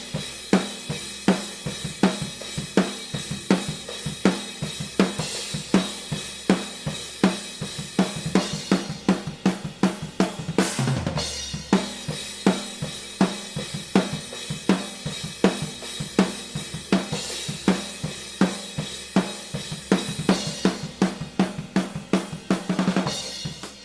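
Acoustic drum kit playing a steady beat of kick, snare and hi-hat under a constant cymbal wash, heard raw and unprocessed through a pair of AKG C214 overhead mics. About eleven seconds in there is one heavier hit that rings on longer.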